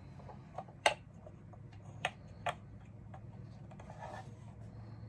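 Plastic grit tube being pushed into place on a Drill Doctor XPK drill bit sharpener: a few light plastic clicks and taps, the loudest about a second in and two more near the middle.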